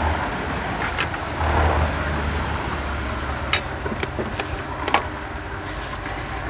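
Road traffic going by, a steady low rumble, with a few sharp clicks and taps; the loudest come about three and a half and five seconds in.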